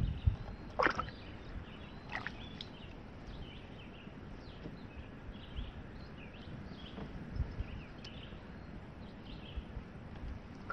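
Birds singing in the background, many short faint calls throughout, over a low steady hiss of water as the canoe is paddled, with low thuds at the start and two sharp sounds about one and two seconds in.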